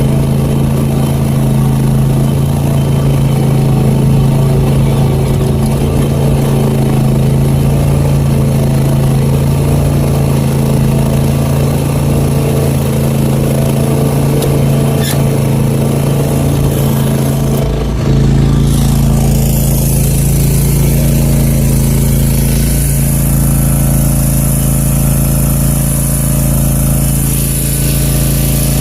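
Zero-turn lawn mower's engine running steadily under way. About eighteen seconds in, its sound changes abruptly.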